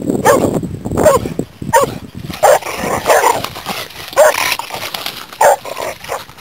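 Kuvasz dogs play-fighting, with a string of short barks about one a second.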